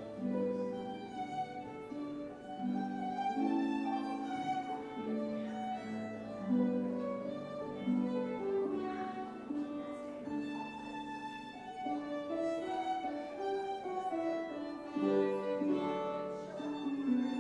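Violin and harp duet playing a tune: the violin carries the melody in held notes over the plucked harp.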